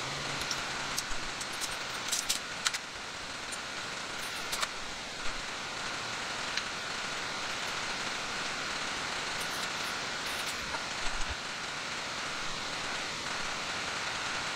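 Steady hiss of the rainforest background with a faint constant high tone, broken by a few short crinkles and knocks as a plastic bag is handled.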